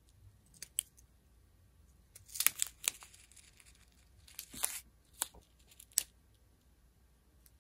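Small clear plastic bags of square resin diamond-painting drills crinkling as they are handled, in a few short, separate rustles.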